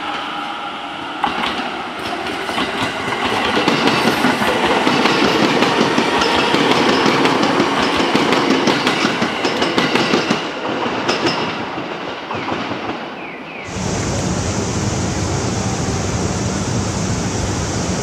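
Electric commuter train running past over the rails, its wheels clattering over the rail joints with many quick clicks; the noise builds to a peak and then fades as the train moves away. About three-quarters of the way in it cuts abruptly to a steady, even rushing noise.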